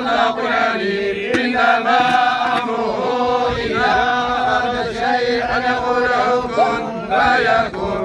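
A group of men chanting Islamic funeral prayers together in unison, in a steady, drawn-out melodic chant.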